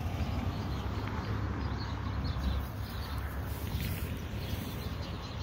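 Outdoor noise: a steady low rumble with light rustling and scuffing, as of footsteps through grass.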